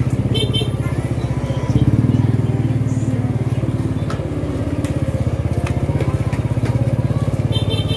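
A motorcycle engine running at low speed, its pulsing note growing louder as it picks up revs about two seconds in.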